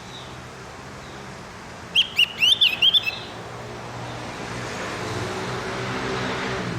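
Javan grey-throated white-eye (opior jawa, cucak gentong) song: a quick burst of about a dozen short, high chirping notes lasting about a second, starting about two seconds in. A low hum with a rushing noise builds up through the second half.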